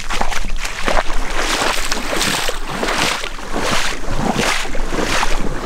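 Footsteps of a person walking, about one and a half steps a second, each a short rustling swish, over a steady low rumble of wind on the microphone.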